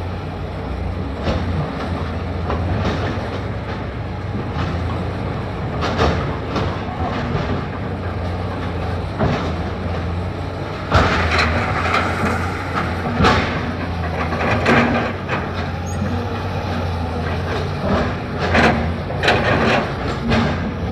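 JCB 3DX backhoe loader's diesel engine running steadily under load, with repeated knocks and clanks from the working bucket and arm, more frequent in the second half.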